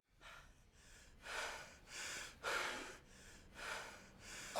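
A person's faint, laboured breathing: about five heavy, gasping breaths in a row.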